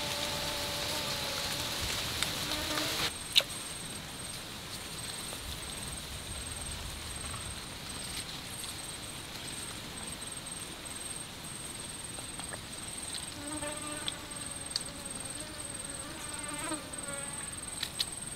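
Swamp insects: a steady high-pitched insect whine sets in about three seconds in and holds, while a flying insect buzzes close by at the start and again near the end. A single sharp click comes about three seconds in.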